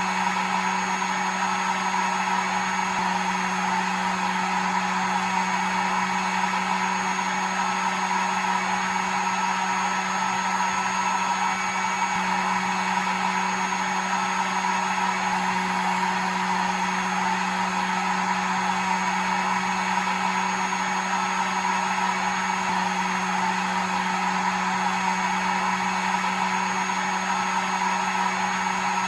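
Hair dryer running continuously, a steady motor hum under an even rush of blown air, used as white noise to lull a baby to sleep.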